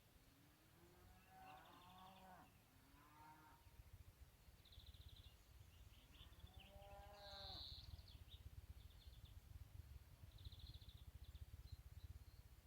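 Faint bleating from livestock: three wavering calls, the first and last each lasting over a second. Small birds chirp in short high trills in between, over a low rumble.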